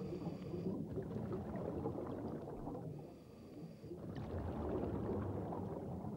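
Scuba diver's exhaled bubbles gurgling underwater in two long stretches, with a short lull about three seconds in.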